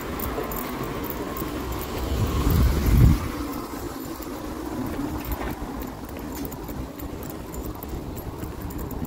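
Footsteps on a wet paved path over a low outdoor rumble, which swells to a louder low rumble peaking about three seconds in before settling back.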